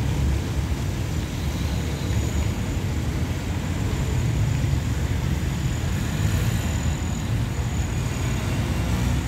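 Steady low outdoor rumble, unbroken and without distinct knocks or horn, with a faint thin high whine above it.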